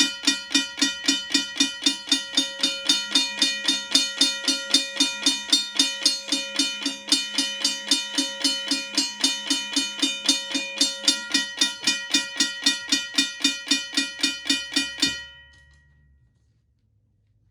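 Modern Industries mechanical bell ringing, its clapper striking the gong rapidly at about four to five strokes a second with a bright, lingering ring. The bell is held in the hand rather than mounted. The ringing stops abruptly about fifteen seconds in.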